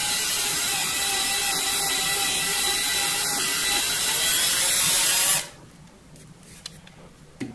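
A power drill spinning a 1/4-inch reamer through the bore of a Delrin adapter to clean up the hole: a steady whirr that cuts off suddenly a little past five seconds in, followed by a few faint clicks.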